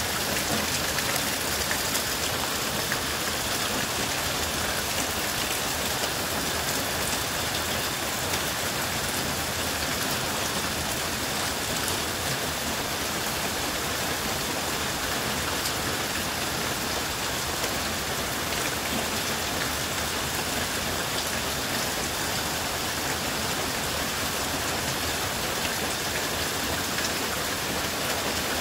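Heavy tropical downpour, about an inch an hour, falling on standing water and wet brick pavers: a steady, dense hiss of drops.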